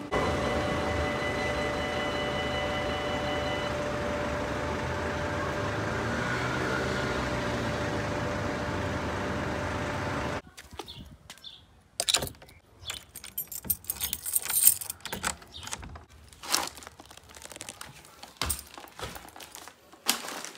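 A train passing at a level crossing: a loud, steady rushing noise with a ringing tone in it, which cuts off suddenly about ten seconds in. After that comes a string of light clicks, knocks and rustles as the straw shopping basket is handled.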